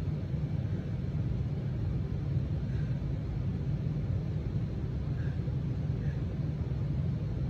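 A steady low rumble with no sneezes in it.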